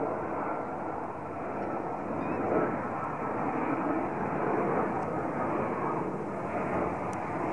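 Dash 8 twin-turboprop airliner on final approach with its landing gear down: a steady engine and propeller hum over a rushing noise, with a few faint steady tones.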